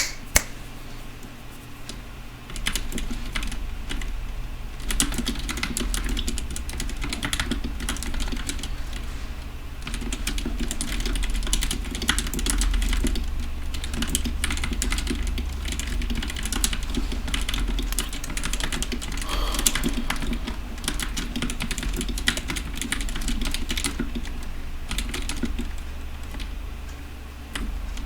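Continuous fast typing on a custom 60% mechanical keyboard with lubed Gateron Black linear switches on an aluminium plate (DZ60 3.0 PCB), starting about two and a half seconds in after a single sharp click. A steady low hum runs underneath.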